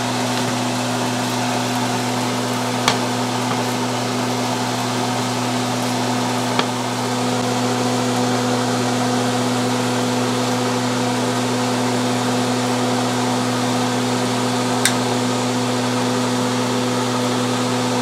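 Stove range-hood exhaust fan running with a steady hum and hiss, over chicken and cauliflower rice frying in the pan. Three sharp clicks of a utensil against the pan, about three, seven and fifteen seconds in.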